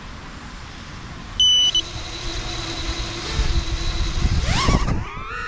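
FPV quadcopter's brushless motors: a short loud beep about a second and a half in, then the props spinning at idle with a steady whine, and near the end the motors spool up with a fast rising whine as the quad lifts off. A steady hiss of light rain runs underneath.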